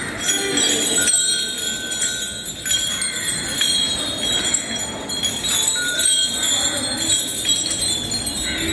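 Bells on a temple elephant's neck chain jingling without a break as the elephant sways its head from side to side.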